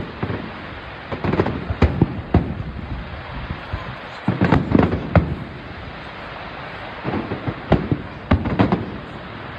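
Fireworks display: aerial shells bursting with sharp bangs in irregular clusters, a dense run of them about halfway through and more near the end, over a steady hiss between the bursts.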